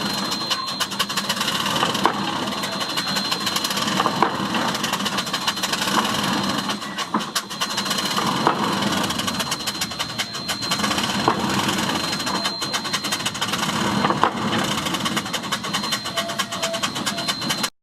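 Railroad pile driver car at work: a steady, rapid mechanical clatter with a sharper strike every second or two.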